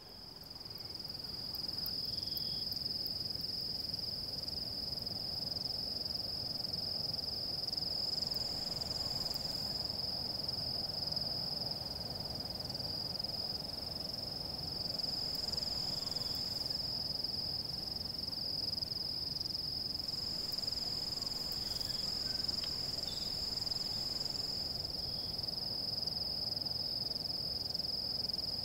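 Insect chorus: a steady, unbroken high-pitched buzzing trill that fades in over the first couple of seconds and then holds, over a low, even rushing noise.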